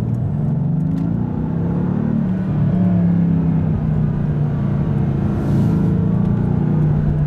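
Mercedes-AMG GT's V8 engine heard from inside the cabin, running steadily at low revs as the car drives slowly through traffic.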